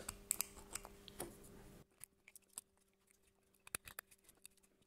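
Faint scattered clicks and snaps of a knife blade cutting and prying plastic support material off a 3D-printed part, over a faint steady hum.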